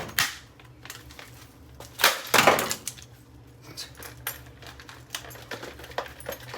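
Plastic body of a MainStays 511406 coffee maker being smashed: a sharp crack just after the start and a louder cluster of blows about two seconds in, with small clicks and rattles of broken plastic pieces in between.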